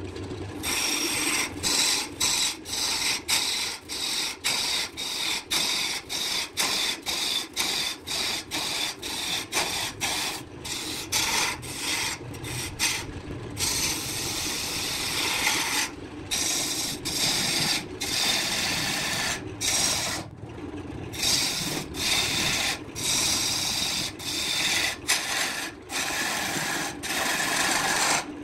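Turning tool cutting into a spinning wood blank on a wood lathe: a loud scraping, shaving hiss that comes in quick strokes with many brief breaks as the tool is eased off and back onto the wood, over the steady run of the lathe.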